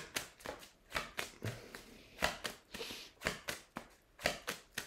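Oracle and tarot cards being handled by hand: a run of light, irregular taps and flicks as cards are picked from the spread.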